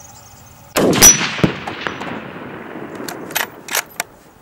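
A single shot from a Lithgow LA102 rifle in .243 Winchester, echoing and dying away over about two seconds. A few sharp metallic clicks follow near the end as the bolt is worked.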